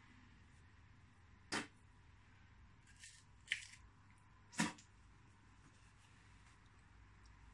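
Four short, sharp crunches and snaps spread over about three seconds as a man bites at the smouldering, charred end of a wooden stick.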